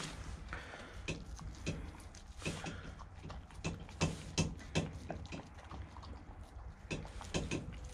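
A laika dog eating cottage cheese from a stainless steel bowl: irregular wet clicks and clinks of its mouth and the metal bowl, several a second.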